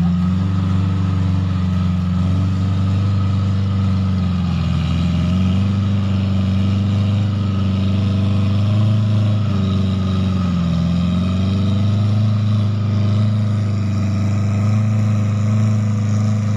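Suzuki Katana (Jimny) 4x4's four-cylinder engine running under load as it drives through thick mud, a steady drone whose pitch dips briefly twice.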